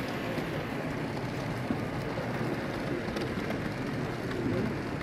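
OO gauge model freight train rolling past on its track, a steam locomotive and a long rake of loaded flat wagons making a steady rumble with faint ticks from the wheels, over the general noise of the exhibition hall.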